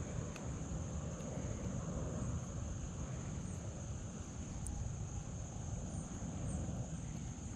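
Steady wind rumble on the microphone, with a faint constant high-pitched whine and a few faint ticks.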